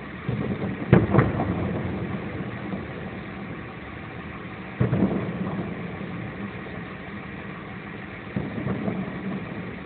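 Distant fireworks going off, heard from inside an idling car: two bangs about a second in, another near five seconds, and a cluster of smaller bangs near the end, each trailing off in a rumble, over the car's steady engine hum.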